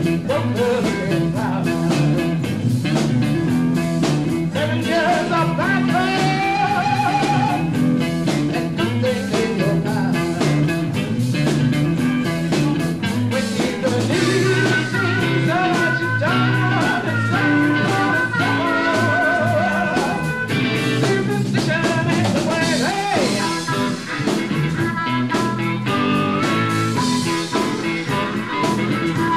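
Live blues band playing, with electric guitars, bass and drums keeping a steady beat and a lead line that bends and wavers in pitch.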